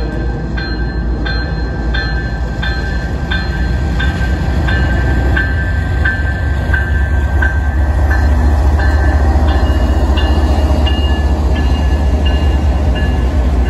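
Freight train's diesel locomotives running past at close range, their heavy rumble swelling about two-thirds of the way through. Over it a bell rings steadily, about three strokes every two seconds, its pitch dropping slightly as the locomotives go by.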